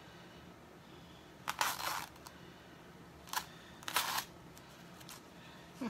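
A sticky plastic silkscreen transfer sheet rustling and crinkling as it is handled and lifted, in a few short bursts.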